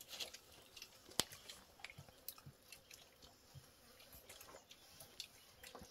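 Quiet eating sounds: soft chewing and small mouth and finger noises as rice and chicken are eaten by hand, with one sharp click a little over a second in.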